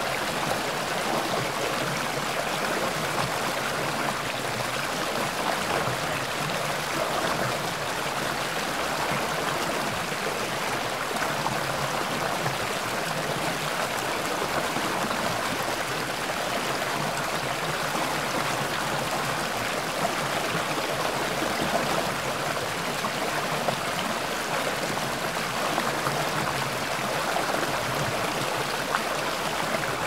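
Mountain stream babbling, a steady, even rush of water that runs on without a break.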